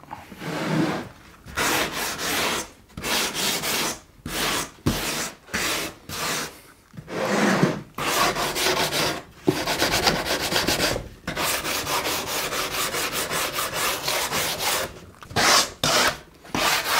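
Hand sanding block with sandpaper rubbed back and forth over the cut edges of OSB board, in runs of rasping strokes broken by short pauses, the strokes coming quicker and more evenly in the middle.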